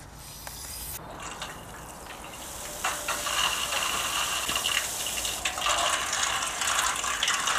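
Mains water from a garden hose forced through a steel panel radiator and jetting out of its far end in a steady hissing spray, flushing sludge out of it. The spray builds over the first few seconds, then runs steady.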